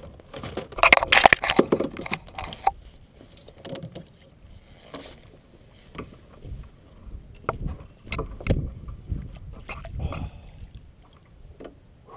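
A hooked bass thrashing and splashing at the surface beside the kayak for about two seconds. After that come scattered knocks and clatters of the landing net and gear against the plastic kayak.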